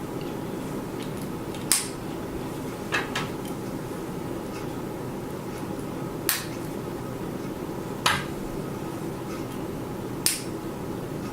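Plastic Lego pieces clicking as they are handled and pressed together, about six sharp clicks spaced irregularly, over a steady background hum.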